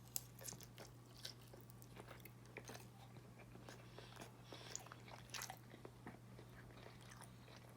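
Faint chewing and biting: a person eating, with scattered soft mouth clicks and smacks.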